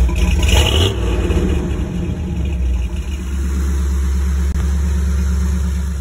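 Jeep Wrangler TJ engine running, heard at the tailpipe as a steady low exhaust rumble; it swells briefly about half a second in, then settles to a steady idle.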